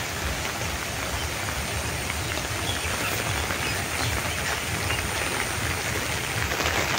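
Rain falling: a steady hiss with fine scattered drop patter.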